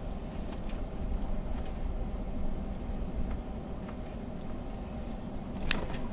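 Car engine and tyre noise heard from inside the cabin as the car drives slowly, a steady low rumble. A single sharp click sounds near the end.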